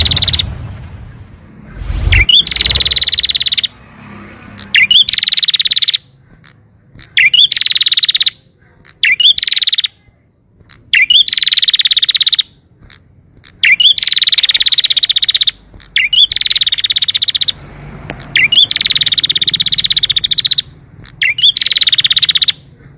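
Domestic canary singing in repeated phrases, each opening with a quick upward note and running into a fast, rattling trill about one to two and a half seconds long, with short pauses between phrases.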